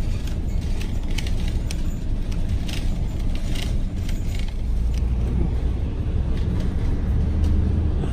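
Inside a moving bus: steady engine and road rumble, with a steadier low engine note in the second half. Light rattling clicks from the cabin in the first half.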